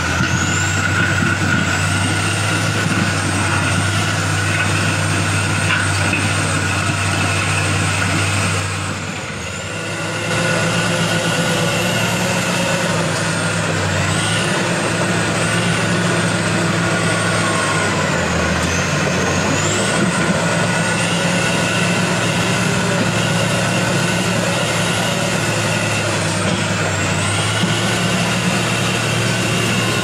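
Caterpillar crawler bulldozer's diesel engine running steadily under load while the dozer works through a muddy river, with a high whine above the engine note. The engine eases off briefly about nine seconds in, then picks up again.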